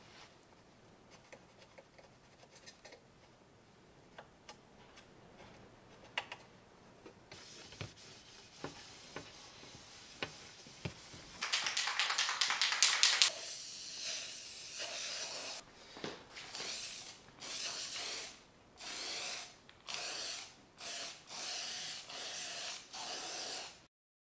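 Aerosol spray paint can spraying onto the bare metal top plate of a DJ mixer: a loud continuous hiss about twelve seconds in, then a run of short hissing bursts with brief gaps between them. Before the spraying there are faint, scattered light ticks of a small tool on the metal plate.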